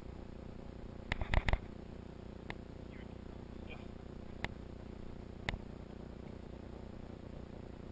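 Handling noise: a short cluster of sharp clicks and knocks about a second in, then a few single clicks spaced a second or two apart, over a steady low hum.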